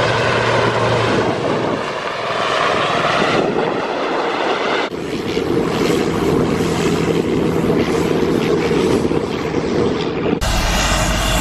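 Aircraft engine noise, most likely a helicopter's turbine and rotor, running loud and steady. Its character changes abruptly about three and a half, five and ten seconds in.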